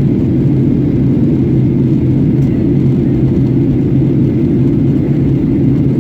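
Steady drone of a Boeing 737-800 in flight, heard from inside the passenger cabin: the engines' hum and airflow noise, with no changes.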